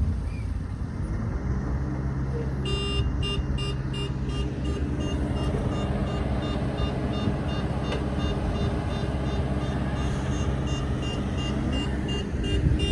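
Heavy road-construction machine's diesel engine running with a steady low drone, joined about three seconds in by a reversing alarm beeping a few times a second.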